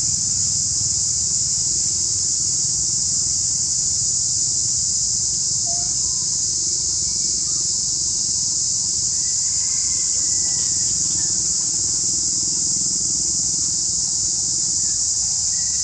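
A dense, steady, high-pitched insect chorus that never lets up, over a low outdoor rumble, with a few faint thin whistles about halfway through and again near the end.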